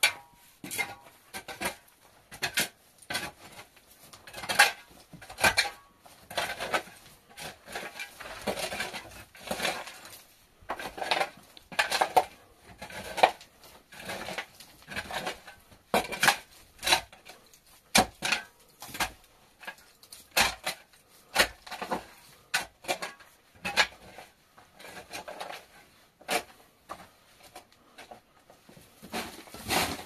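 Irregular clinks and knocks of hard objects being handled, about one or two a second.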